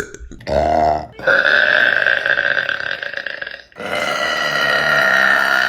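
Female burping: a short burp about half a second in, then two long drawn-out belches of about two and a half seconds each.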